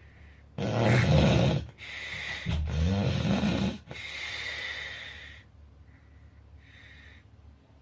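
A person snoring heavily. A loud rattling snore comes about half a second in, then a second long snore with a low, vibrating pitch, then a quieter breathy breath trailing off around five seconds in, with faint breaths near the end.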